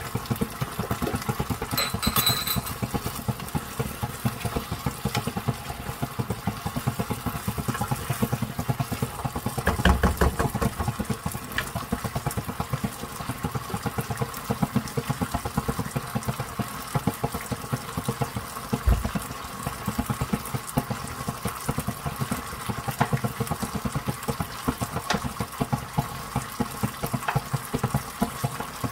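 Thick sweet and sour sauce with pork simmering in a frying pan, a steady dense bubbling crackle over a faint steady hum. A dull knock comes about ten seconds in and another near nineteen seconds.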